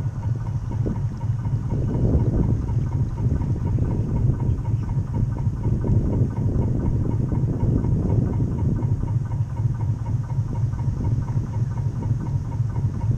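A 1/12-scale HMCC Badger model boat's drive motor and propeller running steadily, a low hum and throb carried through the hull to the bow, with water washing along the hull in uneven swells.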